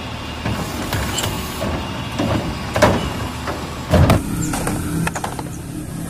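Front-loading garbage truck with an automated cart-tipping arm: the diesel engine runs and the hydraulics work as the arm lifts and tips a wheeled trash cart. There are three loud knocks, about two, three and four seconds in.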